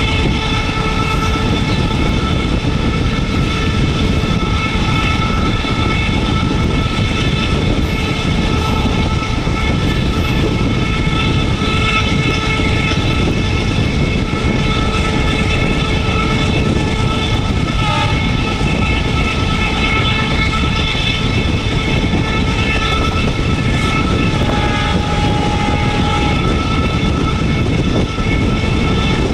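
Indian Railways WDM-3A diesel-electric locomotive running with its train at speed: a loud, steady rumble with a constant high whine over it.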